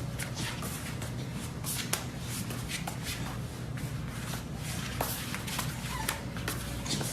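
Irregular shuffling and scuffing with light clicks, over a steady low hum.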